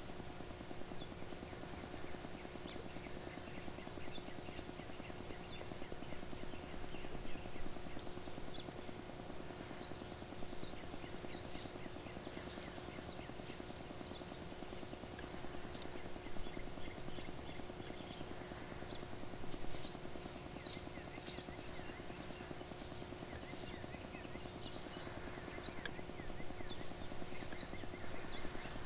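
Quiet outdoor ambience through the scope's microphone: a steady low hum under scattered faint, high, short chirps and ticks, busiest around the middle.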